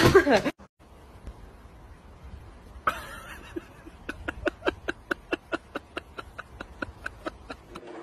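A person laughing in a long run of quick, even bursts, about four or five a second.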